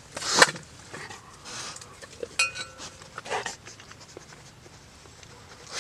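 A dog giving a short, high whine about two and a half seconds in, amid quiet eating sounds of light clicks and a brief breathy puff near the start.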